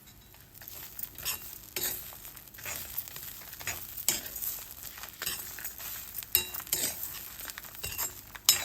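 A spoon stirring and scraping chana dal and grated coconut around an iron kadai, giving irregular scrapes and clinks over a light sizzle from the little sesame oil in the pan. One sharp scrape or knock comes near the end.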